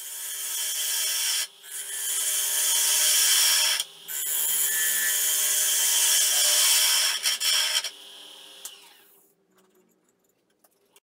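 Wood lathe running with a hand tool cutting the inside of a spinning red carob (algarrobo colorado) vase: a steady hiss of cutting over the lathe's hum, broken twice briefly as the tool lifts off. About eight seconds in the cutting stops and the lathe's whine falls in pitch as it spins down.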